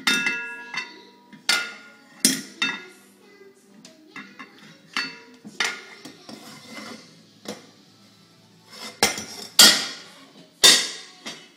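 Metal bowls and pots clanking irregularly as they are pulled from a drawer and knocked against each other and a wooden floor, some strikes leaving a brief metallic ring. The loudest clanks come near the end.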